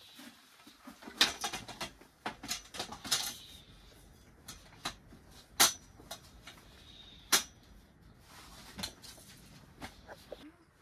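Wooden folding camp chair and table being unfolded and set down: a clatter of wooden slats and metal frame clicking and knocking, with single sharp knocks about five and a half and seven and a half seconds in.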